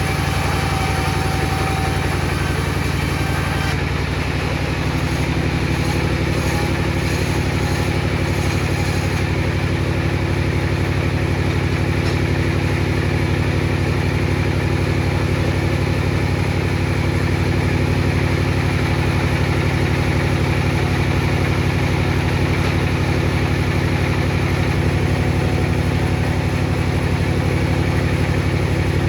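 Table saw motor running steadily at speed, an even hum that does not change through the stretch.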